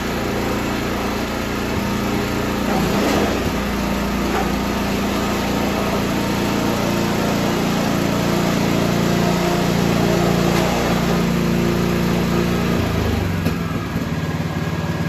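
Honda HSS928 snowblower's single-cylinder four-stroke engine (a 270 cc Honda GX270) running steadily after an electric start on a newly fitted battery. Its note drops a little near the end.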